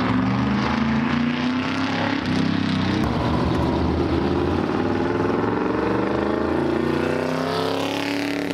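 Vintage open-wheel race car engine running loud as the car laps the track, a steady stack of engine tones whose pitch rises over the last couple of seconds as it comes close and passes by.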